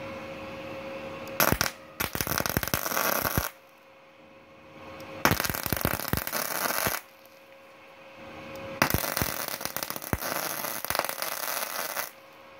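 Multipro MIG-MMA/TIG 160 A-SC welder running gasless flux-core MIG with 0.8 mm wire: the arc crackles and sputters in three bursts of about two to three seconds each, stopping abruptly between them.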